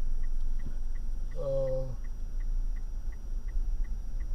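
Steady low road and engine rumble inside a moving car's cabin, with a faint regular ticking about three times a second. A person gives one short drawn-out vocal sound, like an 'uhh', about a second and a half in.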